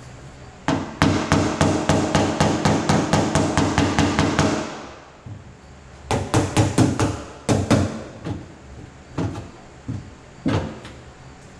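Body hammer tapping on a car door's sheet-metal skin: a fast even run of about five light blows a second for some four seconds, the panel ringing between blows, then a shorter run and a few spaced single taps. The tapping knocks down the metal beside a dented body line so that the line, pried up from behind, stays up.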